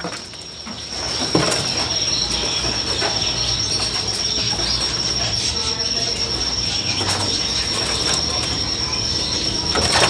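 Ambience among caged birds: a steady high-pitched whine over a low hum, with scattered faint bird calls.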